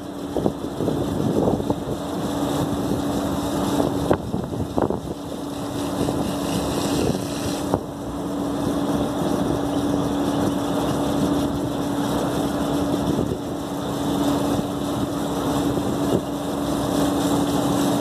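Pressure washer motor running steadily while its lance sprays water onto an air-cooled chiller's finned condenser coil: a constant hum under the hiss of the spray, with a few short knocks in the first few seconds.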